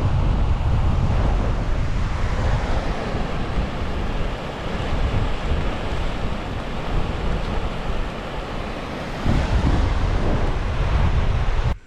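Strong gusting wind buffeting the camera microphone: a loud, steady roar of deep rumble and hiss. It swells again a little after nine seconds in and cuts off suddenly near the end.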